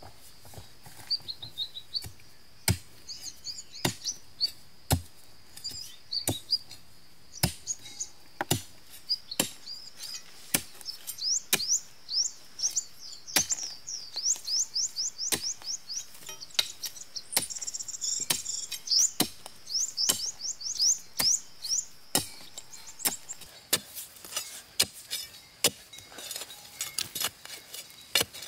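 Irregular sharp knocks, one or two a second, from a hand tool striking wood. Over them a bird sings quick series of high chirps, densest in the middle stretch.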